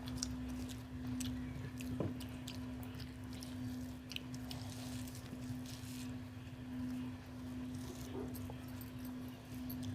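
Faint eating sounds: chewing and small wet clicks of rice being handled, over a steady low hum.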